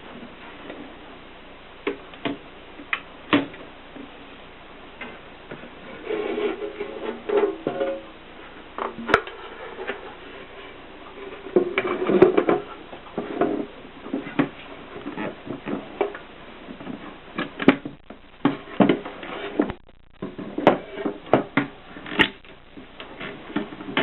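Gossen Tippa portable typewriter being typed on: irregular keystroke clicks, with two longer stretches of mechanical rattle, about six seconds in and again around twelve seconds in.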